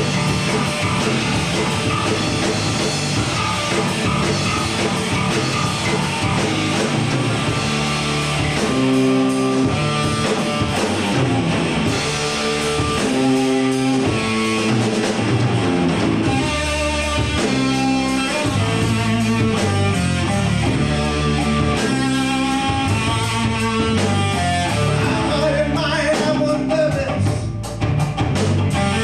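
Live rock band playing: electric guitar over a drum kit, with a second guitar.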